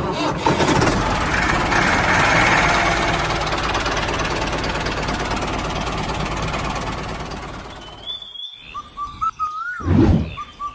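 Toy tractor pulling a cultivator through sand, a dense, steady mechanical running noise that fades out after about seven seconds. Then a few bird chirps and a single loud thump near the end.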